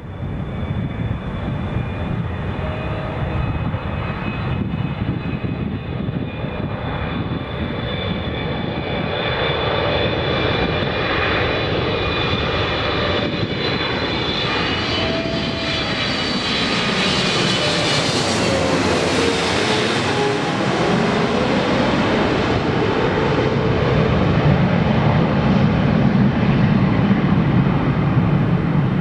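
Jet airliner engines on final approach as a Boeing 777-300ER's two GE90 turbofans pass low overhead. A high whine builds to a peak just past the middle, drops in pitch as the aircraft goes over, then gives way to a deeper, growing rumble as it flies away.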